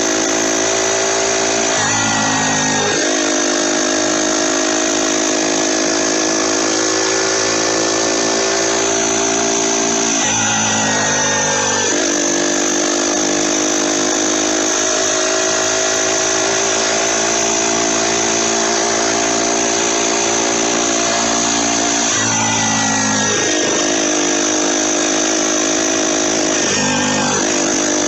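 Turbocharged motorized bicycle engine running under load on the road, its note dipping and climbing back four times as the throttle is eased and reopened. A steady high whistle, the turbo's spin-up whistle, rides over it.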